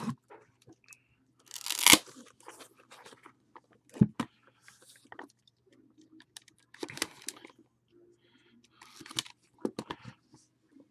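A sealed pack of trading cards being slit and torn open by hand: several short bursts of tearing and crinkling wrapper, the loudest about two seconds in, with a sharp knock about four seconds in.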